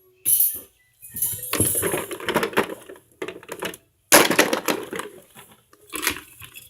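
Irregular bursts of rustling and clattering from objects being handled and rummaged through, several seconds long, with short breaks in between.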